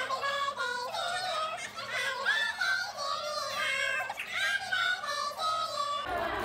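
Background music: a pop song with a high-pitched sung vocal line, thin in the bass. It stops near the end.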